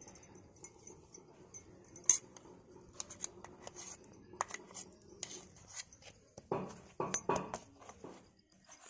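Scattered light clinks, taps and handling knocks of steel kitchen utensils, a spoon and a large steel plate, with a sharp clink about two seconds in and a cluster of louder knocks around seven seconds.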